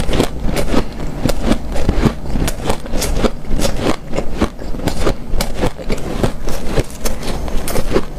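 Close-miked chewing of hard, snow-like ice powder: rapid, irregular crunches, several a second, with a soft squeak.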